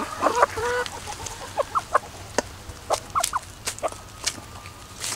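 Young gamefowl, mostly asil chickens, clucking in short scattered calls, with a cluster of calls about half a second in and sharp ticks in between.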